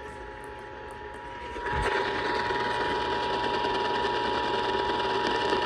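Emergency Alert System attention signal received over the radio: a steady two-tone alarm over radio hiss. It starts with a click about a third of the way in, after a stretch of faint hiss.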